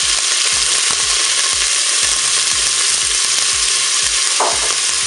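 Frozen chopped onions sizzling in hot olive oil in a Cookeo multicooker pot: a loud, steady sizzle as they begin to fry.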